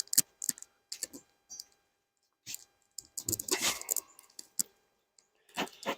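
Scattered sharp clicks and knocks of wooden beehive parts and tools being handled at an open hive, with a short breathy rush of noise about three and a half seconds in.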